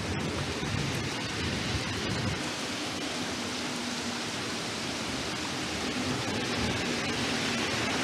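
Steady hiss of heavy rain, with a low thunder rumble dying away in the first couple of seconds.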